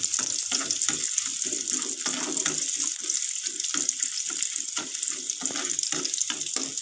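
Sliced shallots frying in hot oil in an aluminium wok: a steady sizzle, with frequent scrapes and taps of a metal ladle stirring them as they are sautéed until half-cooked.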